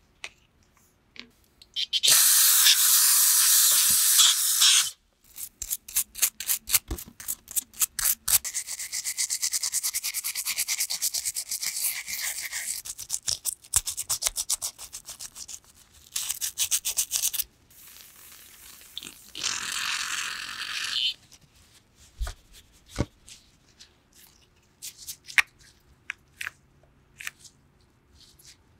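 A toothbrush scrubbing a plastic brake master cylinder reservoir cap in quick back-and-forth strokes, in several runs, with light handling clicks between them. Near the start there is a loud, steady hiss lasting about three seconds.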